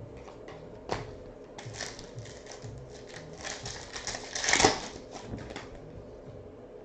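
Trading cards and their pack wrapper being handled: a run of light clicks and crinkling, with one loud sharp crinkle about four and a half seconds in.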